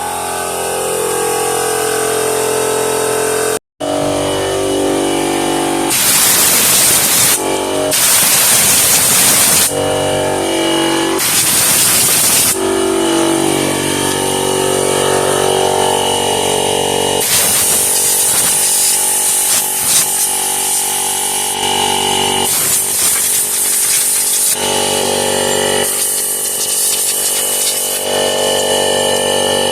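Ridgid 18V cordless one-gallon air compressor running steadily, with about six loud blasts of compressed air, each a second or few long, blown through a clogged drain line to clear it.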